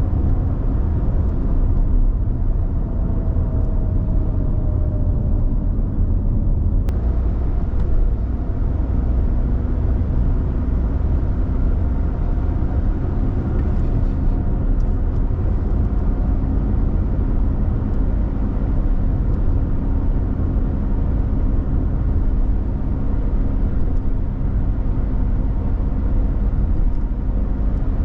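Suzuki Lapin driving, heard from inside the cabin: steady road and tyre rumble with a low, even drone.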